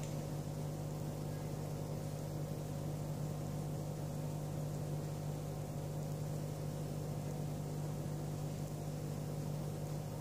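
A steady low mechanical hum with a faint whir above it, unchanging in pitch and level throughout.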